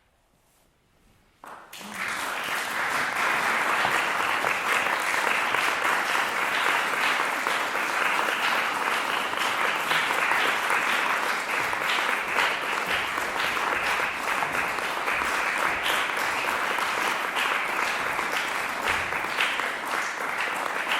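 Audience applauding after a song ends: a moment of near silence, then clapping breaks out about a second and a half in and builds quickly to steady, sustained applause.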